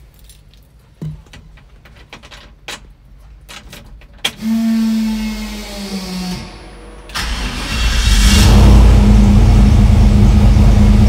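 Ignition key clicking in the switch, a short steady hum on key-on, then the turbocharged 5.3-litre LS V8 cranks and starts about seven seconds in, settling into a loud steady idle.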